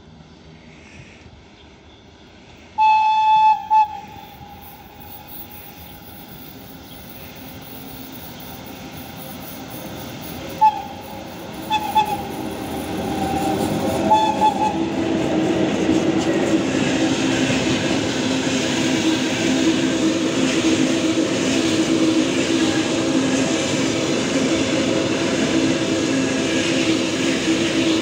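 VL8 eight-axle electric locomotive sounding its horn as it approaches: a loud blast about three seconds in, then a few short toots around 11 to 14 seconds. The train's noise then rises and runs on as a loud, steady rumble of the locomotive and wagons rolling past close by.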